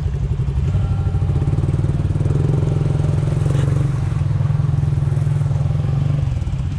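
ATV engine running at low, steady throttle, a deep even pulsing hum. The note drops slightly near the end.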